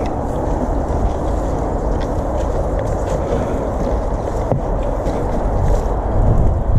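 Steady rumbling wind noise on the microphone, mixed with a water-fed pole brush scrubbing and spraying water on conservatory glass.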